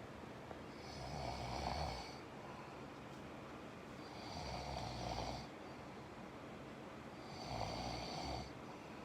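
Snoring: three snores about three seconds apart, each lasting about a second, with quieter stretches between.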